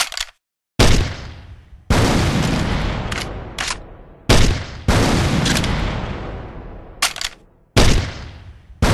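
M79 grenade launcher sound effect: a series of heavy blasts, five or six in all, each trailing off over a second or more, with short sharp clicks between them.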